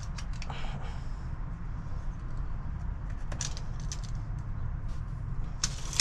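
A low steady rumble, with a few light clicks in the first second and two short scratchy sounds about three and six seconds in, from hands working with a pencil at a wooden grade stake.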